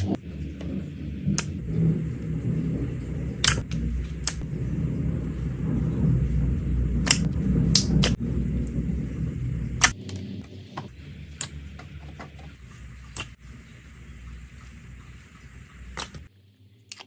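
Slime being squished and pressed close to the microphone: dense low handling noise for about ten seconds, with sharp clicks and pops of trapped air scattered through, then softer handling.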